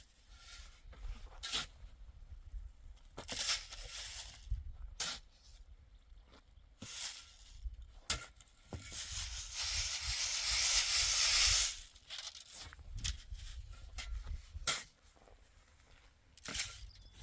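Scattered knocks, clicks and scrapes of hand work with tools and materials, with a loud rushing, tearing-like noise of about three seconds a little past the middle.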